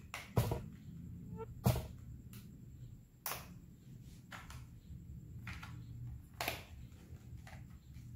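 Handling noise from a plastic electric mosquito racket: a few sharp clicks and taps spread irregularly, with fainter rubbing and knocks between them.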